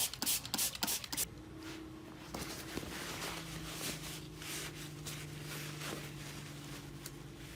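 Quick rapid scrubbing and swishing of a small diecast car body in an alcohol bath, stopping about a second in. After that comes a quiet, steady low hum with a few faint light knocks.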